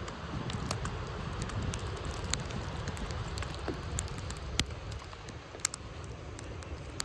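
Wind rumbling on the microphone, with scattered sharp clicks and ticks, the loudest about four and a half and five and a half seconds in.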